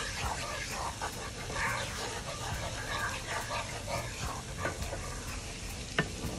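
Garlic and butter sizzling in a non-stick frying pan while a wooden spatula stirs and scrapes through them. There is a sharp tap near the end.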